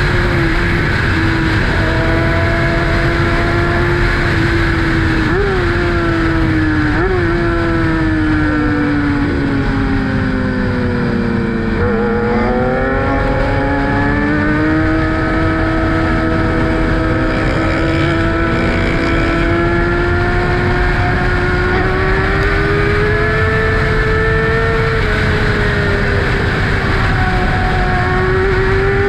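2012 Kawasaki ZX-6R inline-four sport bike engine running through an M4 Tech 1 aftermarket exhaust while being ridden, with wind rushing over the microphone. The engine note sinks slowly as the bike eases off, with two short blips of revs about five and seven seconds in. It then climbs steadily as the bike picks up speed again, dips briefly near the end and rises once more.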